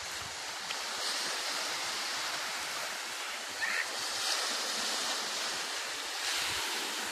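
Surf on a sandy beach: small waves breaking and washing up the shore in a steady hiss, swelling about three times as each wave breaks.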